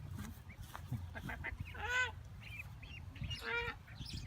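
Domestic ducks calling: two loud calls, about two seconds in and again a second and a half later, with fainter short chirps between.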